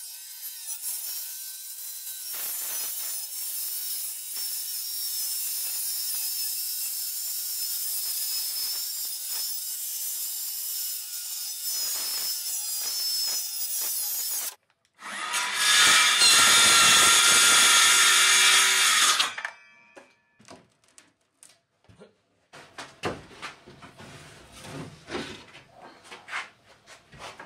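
Hilti cordless circular saw cutting through plywood: a long steady cut, then after a sudden break about fourteen seconds in, a shorter, louder cut of about four seconds. After that come scattered knocks and scrapes as plywood sheets are handled.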